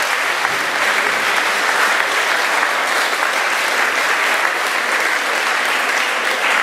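Audience applauding, many hands clapping in a steady, dense ovation.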